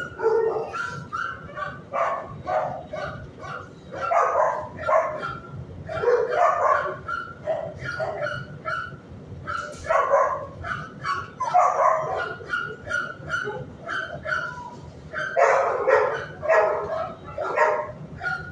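Shelter dogs barking in quick, overlapping runs of short barks, several a second, with the densest bursts at intervals.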